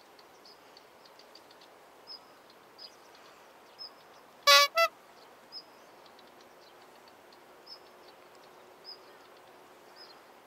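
Two short, loud honking toots about halfway through, the second a little higher in pitch, over quiet outdoor background noise with faint short high chirps.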